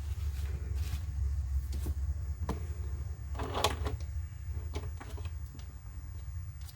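Hands handling a plastic action figure and its packaging: scattered small clicks and knocks, with a short rustle about three and a half seconds in, over a steady low hum.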